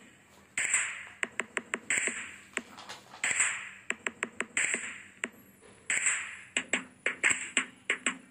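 Background music in a sparse percussion passage: sharp finger-snap-like clicks in quick clusters over repeating hissing swells, with a low held note coming in near the end.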